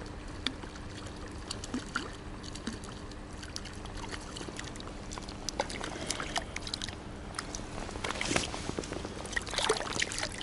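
Hooked perch splashing and thrashing at the water's surface as it is drawn in to hand, with scattered sharp splashes and water dripping; the splashing is heaviest in the last few seconds.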